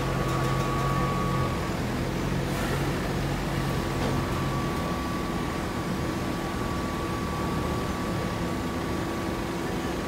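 Forklift engine running close by over a steady machinery hum, with a thin high whine that drops out briefly about two seconds in.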